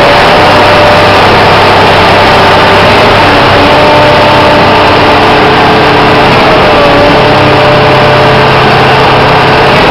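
Stationary concrete pump's engine running steadily and loud, with held tones that shift in pitch a few times.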